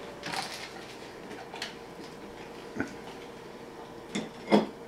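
A person eating noisily: scattered wet mouth clicks and smacks, with the loudest two close together near the end.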